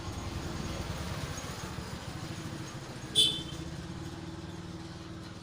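A motor engine running steadily with a low, fast-pulsing rumble. A brief, sharp high-pitched squeak cuts in about three seconds in.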